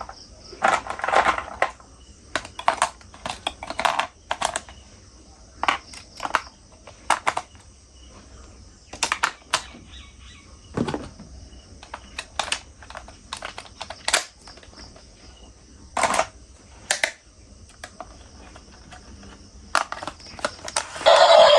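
Irregular clicks and light knocks of hard plastic toy vehicles being handled and set down, with a couple of short scrubbing rustles about a second in.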